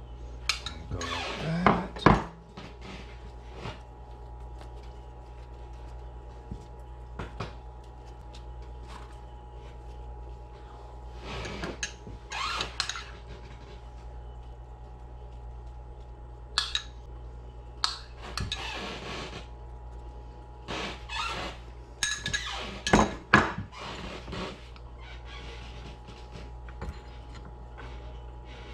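A metal spoon scraping and clinking in a ceramic ramekin of tartar sauce, with dishes and utensils handled on a kitchen counter, in scattered short bursts; the loudest clatters come about two seconds in and again near the end. A steady low hum runs underneath.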